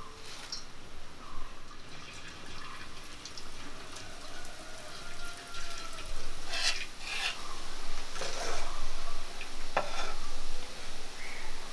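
Kitchen cooking sounds: a few short scrapes and knocks of utensils in the second half, over a faint steady background.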